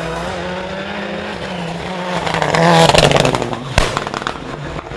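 Rally car engine pulling hard as the car approaches and passes close by, loudest about three seconds in. A sharp crack comes a little before four seconds, among a burst of crackles, before the sound fades away.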